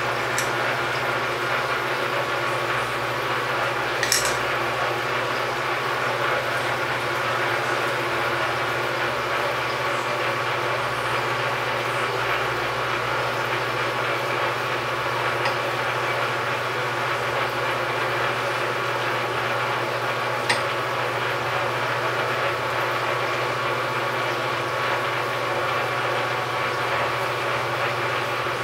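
Metal lathe running steadily, turning a steel shaft while split bronze bearing halves are held on it by hand and lapped to a close fit; a constant hum with two light clicks, one about four seconds in and one about twenty seconds in.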